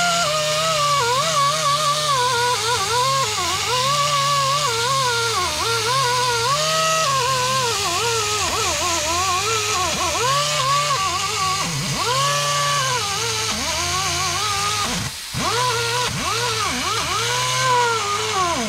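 Pneumatic right-angle die grinder spinning a small abrasive disc against a steel wheel-hub face, its whine dipping and rising in pitch as the disc bears down and eases off. It cuts out briefly about three-quarters of the way through. The grinder is cleaning rust and scale off the hub so the new brake rotor will sit flat.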